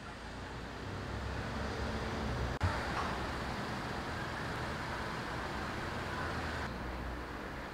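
Outdoor street ambience: a steady hiss of road traffic from passing cars, broken once by a sudden brief dropout about two and a half seconds in.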